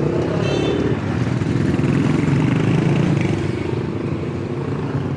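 Small motorcycle engines running as motorcycles and motorcycle-sidecar tricycles pass close by, a steady mix of engine noise. A brief high-pitched tone sounds about half a second in.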